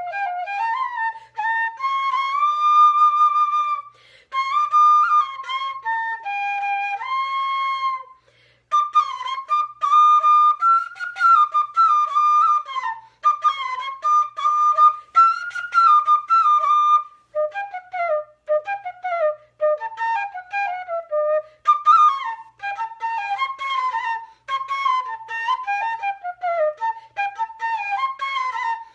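Bamboo transverse flute (bansuri) playing a solo melody. Early phrases have held notes with slides between them and short pauses for breath; from about halfway through the melody turns into quicker falling runs of short notes.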